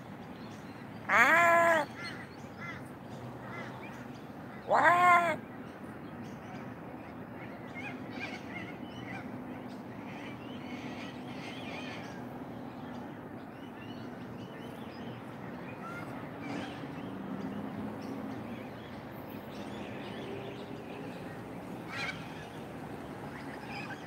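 A crow calling twice with long, drawn-out caws, about a second in and about five seconds in. Faint chirps of other birds follow.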